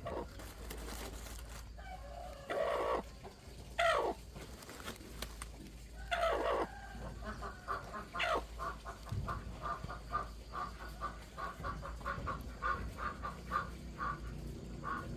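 Chickens clucking: a few short calls that drop sharply in pitch, then a run of quick short notes, about three or four a second.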